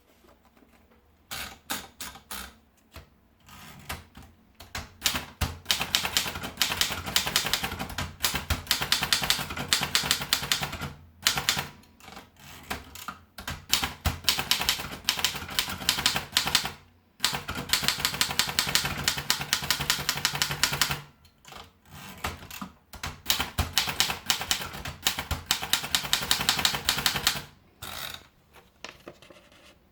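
Erika Model 11 manual portable typewriter being typed on: quick runs of sharp key strikes, several seconds each, separated by short pauses.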